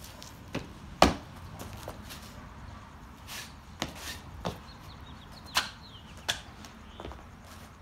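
A series of sharp slaps and thuds from a martial artist's strikes and steps during a kung fu form, about ten in all and irregularly spaced. The loudest is about a second in.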